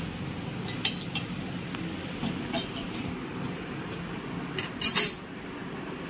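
Glass cups clinking and knocking on a hard countertop: a few light clinks about a second in and again around two and a half seconds, then a louder cluster of knocks near five seconds in.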